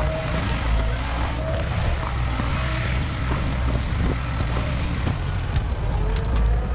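A heavy forestry machine's engine runs steadily with a deep rumble. From about five seconds in there are scattered sharp clicks and knocks.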